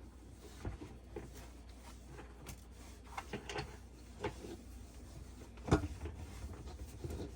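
Scattered light clicks and knocks of things being handled inside a dishwasher while it is cleaned, with one louder knock a little under six seconds in.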